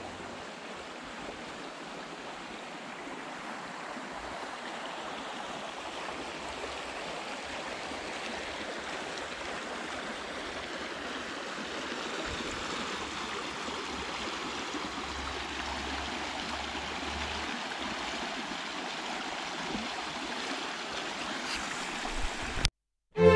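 Shallow creek running over a stony bed, a steady rushing that grows gradually louder. It cuts off suddenly just before the end.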